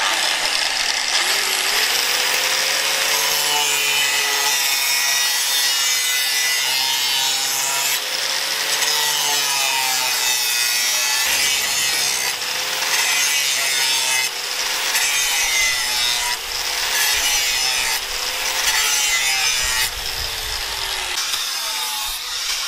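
Electric angle grinder grinding the steel of an axe head cut from a tractor plough disc, first with a grinding disc and later with a flap disc. The steady grinding noise carries a motor whine that wavers up and down in pitch.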